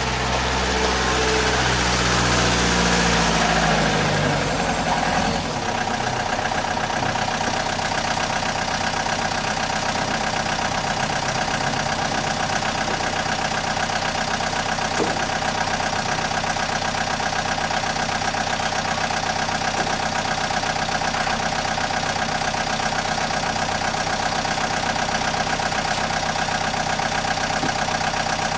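A machine's motor running with a steady, engine-like hum; in the first few seconds its pitch falls before it settles.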